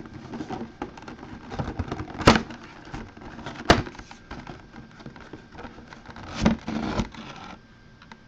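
Cardboard collectible box being handled and its lid pulled off on a wooden table: a few sharp knocks and cracks, the loudest a little over two seconds in and near four seconds, then a longer scraping, sliding rustle as the lid comes off near the end.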